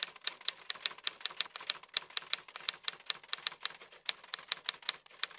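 Typing sound effect: a quick, uneven run of sharp keystroke clicks, about four or five a second, with a few brief pauses.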